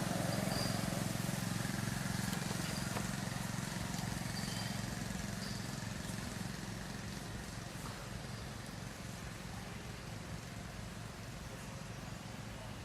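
A steady low engine hum from a passing or idling motor vehicle, growing slowly fainter.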